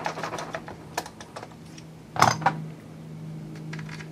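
Small clicks and taps of hand tools and small parts during hobby-kit assembly at the bench, with one louder knock a little over two seconds in.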